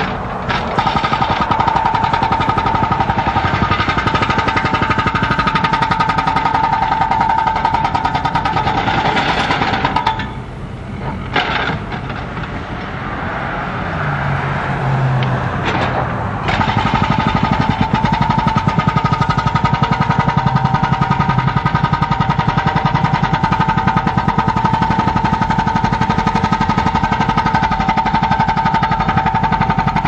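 Hydraulic breaker hammer on a Cat backhoe loader pounding old concrete, a rapid, steady run of ringing blows. It stops about ten seconds in, leaving the loader's engine running, and starts hammering again about six seconds later.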